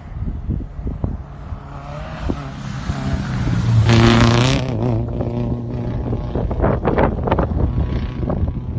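Subaru Impreza rally car engine revving hard on a dirt trail, loudest about four seconds in. After the peak, sharp clicks and rattles come through over the engine.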